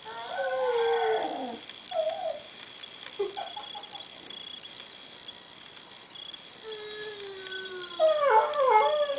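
Siberian husky howling and whining. It opens with a long howl that falls in pitch, gives a few short whimpers in the middle, a long low held note, and near the end a quick run of warbling, bending howls.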